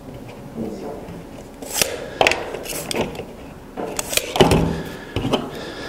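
Clicks, taps and rustling from plastic drip tubing and a razor knife being handled on a tabletop, with a louder knock about four and a half seconds in.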